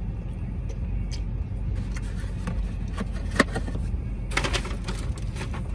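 A person eating: small mouth clicks and chewing, one sharp click about three and a half seconds in, then crinkling and rustling of a takeout container from about four seconds in, over a steady low rumble.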